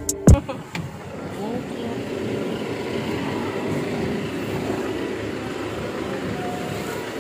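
Steady road traffic and street noise with faint distant voices, after a single thump at the very start.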